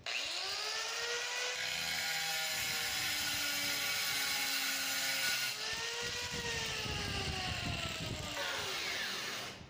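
DeWalt angle grinder with a diamond tile-cutting blade running free, with no load: its motor whine rises as it spins up, dips and climbs again a little past halfway, then falls away as it winds down near the end.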